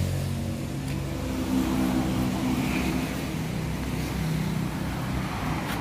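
A motor vehicle engine running, its pitch shifting up and down over several seconds.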